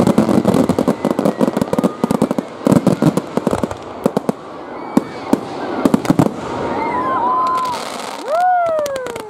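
Fireworks going off: rapid volleys of sharp bangs and crackle from bursting shells, dense for the first six seconds. Near the end come a few high whistling glides, one rising then falling.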